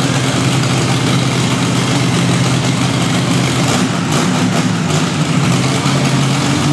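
Monster truck engine idling steadily and loudly.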